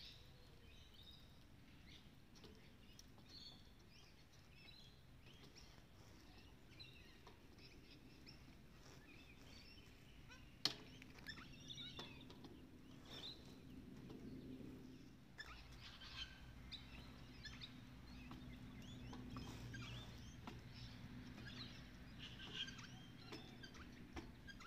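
Faint small birds chirping on and off. A single sharp click sounds about ten seconds in, and a low steady hum comes in after it and carries on.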